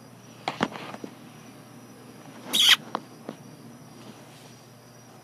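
A few short knocks and scuffs from a horse shifting about in its stall, with one louder brief rushing burst about two and a half seconds in. Crickets chirp steadily in the background.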